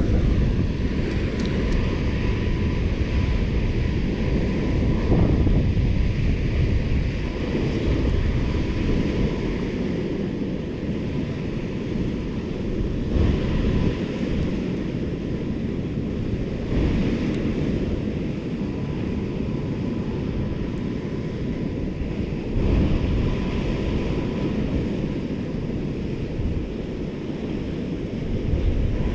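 Wind buffeting the microphone on a boat on open water, a rough rumbling rush that swells and eases, with a faint thin steady tone coming and going.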